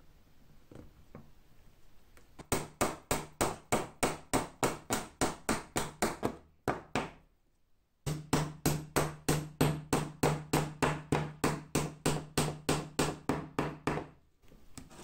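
Small hammer tapping rapidly on the leather hinge of an old bellows: two runs of quick, even taps, about three a second, with a brief pause between them.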